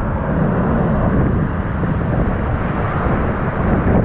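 Hurricane eyewall wind blowing hard and steadily, with driving rain and gusts buffeting the microphone.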